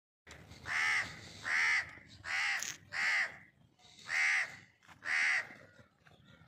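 A crow cawing: six harsh calls of about half a second each, spaced roughly a second apart.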